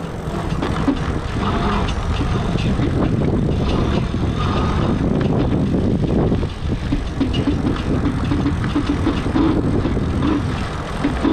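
Lectric XP 3.0 step-through e-bike's hub motor running, with a steady rumble of road and wind noise. From about six seconds in, a pulsing hum comes and goes. This is the bad grinding noise the owner reports from the new bike's hub.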